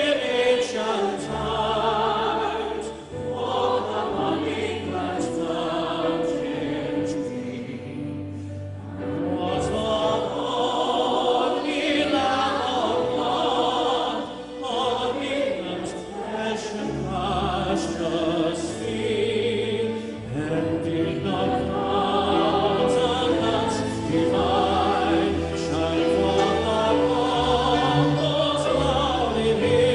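Live performance of a patriotic anthem: a male classical singer and three female singers sing in harmony over grand piano and band accompaniment.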